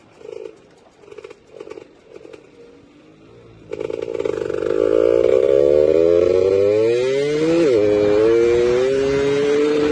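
Yamaha F1ZR two-stroke motorcycle engine pulling under acceleration. After a few short, quieter bursts it comes in loud about four seconds in, its pitch climbing steadily. A quick dip in pitch a little after halfway is followed by a slower climb.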